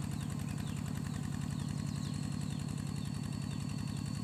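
Two-wheel walking tractor with cage wheels, its engine running steadily with a fast even putter while it works a wet, muddy paddy field.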